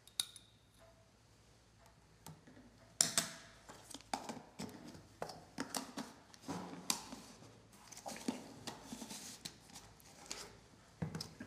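Metal spatula scraping and tapping in a plastic jar of copper(II) oxide powder, then the jar being handled and its lid put back on. There is a single click near the start, then a busy run of small clicks, taps and scrapes from about three seconds in.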